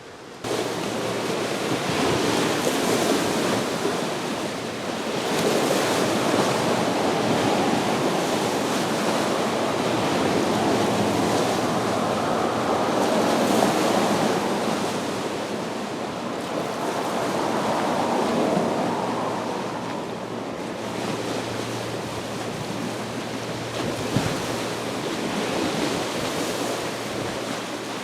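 Small lake waves washing and splashing against the shore of Green Bay. The sound swells and ebbs in slow surges every few seconds, starting suddenly about half a second in.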